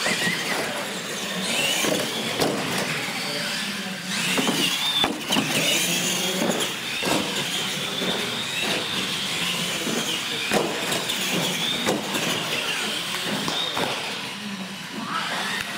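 Electric R/C monster trucks racing. A high motor-and-gear whine rises and falls with the throttle, with tyre noise and sharp knocks as the trucks hit and land off the ramps.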